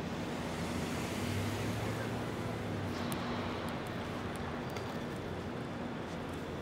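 Steady city street noise: a rumble of traffic with a faint low hum running under it.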